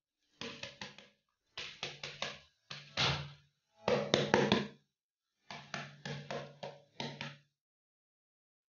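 Plastic bowl knocked against the rim of a wok to shake out the last grains of rice: six short bursts of three or four quick knocks each, about a second apart, with a low ring after each knock.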